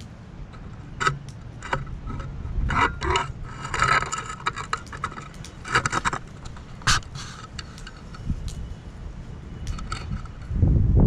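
Stainless-steel fire-pit parts being handled: a string of metallic clinks and scrapes, some with a short ring, and a low rumble near the end.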